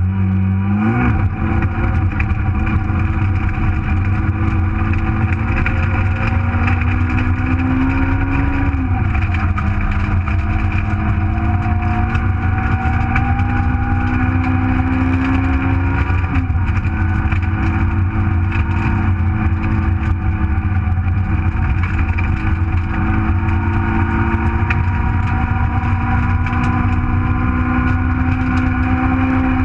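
Nissan Micra rally car's 1.4-litre engine under hard load, heard from inside the cabin. The engine note climbs slowly through each gear and drops back sharply at each upshift, over a constant low road rumble.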